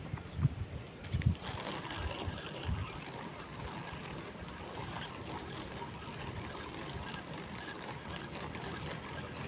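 A few low bumps of the camera being handled in the first three seconds, then a faint steady outdoor background noise.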